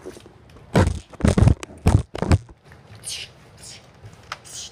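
Handling noise from a handheld camera being grabbed and jostled: several loud rubbing, scraping bursts in the first half, then softer hissing scrapes near the end.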